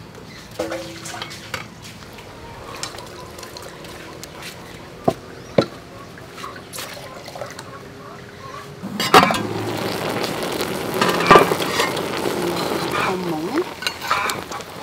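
A large pot of water at a rolling boil, a loud bubbling hiss that comes in about nine seconds in, as a whole pig head is lifted from it with metal tongs. Before that, quieter sounds of hands handling herbs in a bowl of water, with two sharp knocks.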